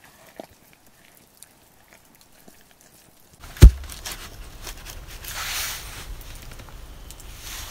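A sawn log round is set down on the earth floor with one heavy thump about three and a half seconds in, followed by a few seconds of rustling as it is shifted into place. Before that there are only a few faint crackles from a small wood fire.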